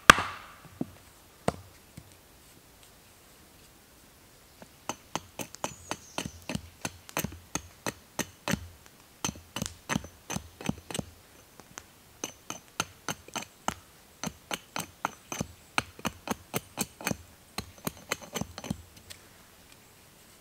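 Hatchet chopping into an oak mallet blank held against a chopping stump: a quick run of short, sharp wooden knocks, about two to three a second, with a brief pause about halfway. A single loud knock at the very start.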